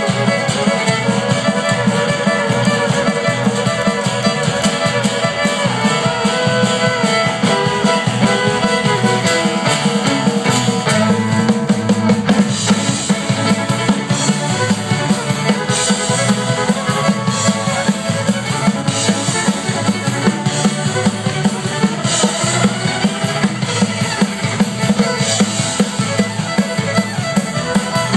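Live dance music from a band: fiddle over guitar and drum kit, with a steady beat.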